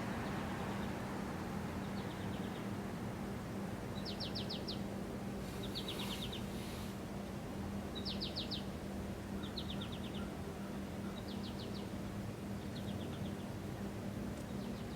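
A small bird's short, rapid trills, repeated every second or two and varying a little in pitch, over a steady low hum.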